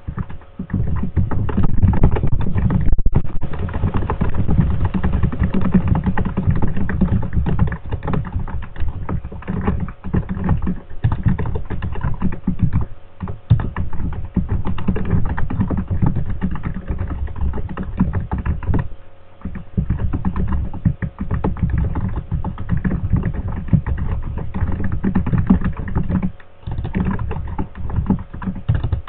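Fast, continuous typing on a computer keyboard, a dense stream of key clicks broken by a few brief pauses.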